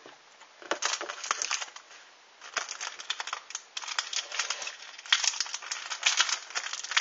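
Foil wrapper of a Pokémon trading-card booster pack crinkling and crackling as it is gripped and torn open with some effort: a short stretch about a second in, then near-continuous crinkling from about halfway through.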